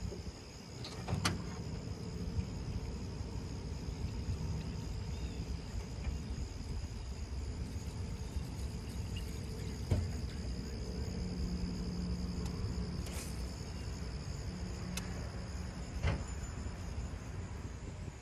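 Outdoor lake ambience: a steady low rumble under a constant high, thin insect drone, with a few short sharp clicks from fishing tackle handled while reeling.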